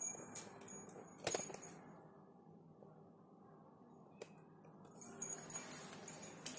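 Small metal objects jingling and clinking in short bursts, with a knock about a second in, while a phone is handled. The jingling comes early and again in the last second and a half, with a quiet stretch between.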